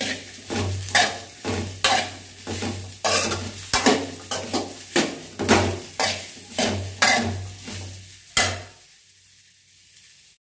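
Steel spoon scraping and stirring chopped okra around an aluminium kadai as it roasts in a little oil, about two strokes a second. The stirring stops near the end.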